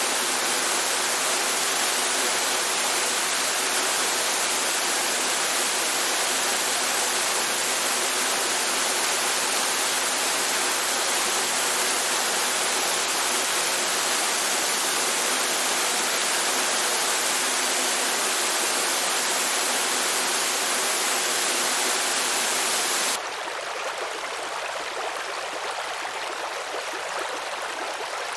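Steady rush of flowing water, a dense hiss strongest in the upper range. Near the end it cuts abruptly to a quieter, softer flow, a change to a different stretch of water.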